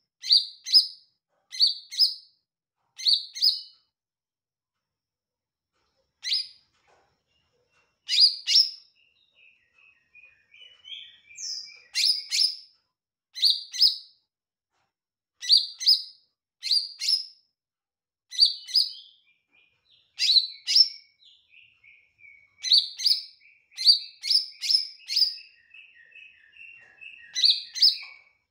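Caged male green leafbird (cucak ijo) singing: loud, sharp high notes in quick clusters of two or three, interleaved with softer, lower twittering runs. The bird pauses for a few seconds after the first clusters.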